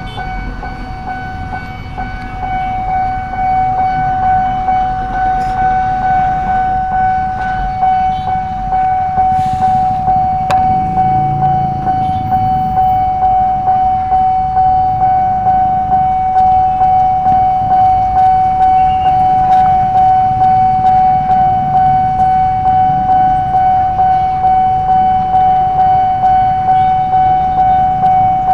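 Railway level-crossing warning alarm sounding one steady electronic tone that pulses evenly, growing louder about three seconds in. A heavy truck's engine rumbles underneath as it crawls over the tracks.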